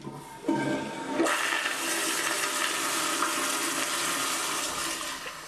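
Toilet flushing through a chrome flushometer valve on a tankless bowl: a rush of water that jumps to full strength about a second in, holds steady, then eases off near the end.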